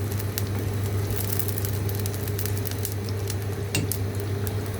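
A pot frying in palm oil: a steady sizzle with scattered crackles and pops, over a steady low hum.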